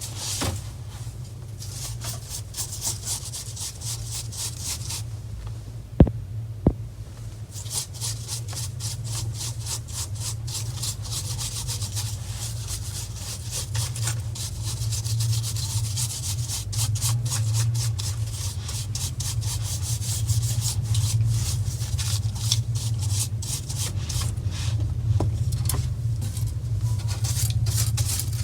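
A brush scrubbing dust off a laptop's opened insides in quick, repeated scratchy strokes, with a couple of sharp knocks about six seconds in, over a steady low hum.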